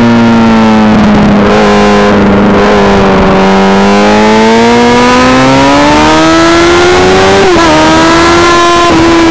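Honda CBR Fireblade's inline-four engine on track at high revs, held fairly steady through a long corner, then rising as the bike drives out of it. About seven and a half seconds in the pitch drops sharply for a quick upshift and climbs again.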